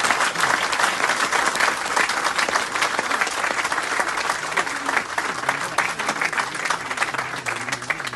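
Audience applauding after a speech: dense, sustained clapping from many hands, easing off slightly near the end.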